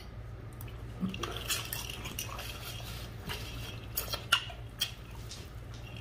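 Eating a seafood boil by hand: scattered sharp clicks and small crackles as crab and shrimp shells are broken and handled. A low steady hum runs underneath.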